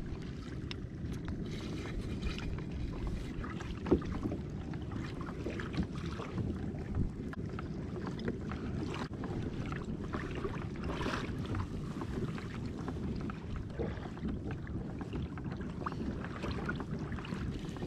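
Pedal drive of a fishing kayak being pedaled: a steady low rumble of the drive and hull in the water, with light clicks and one sharper knock about four seconds in. The drive is squeaking.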